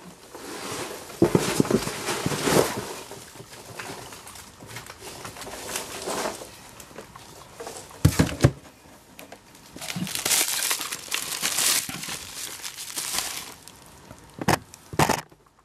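Plastic bubble-wrap packaging crinkling and rustling in irregular bursts as packages are pulled out of a cardboard shipping box, with a few sharp knocks from the box being handled.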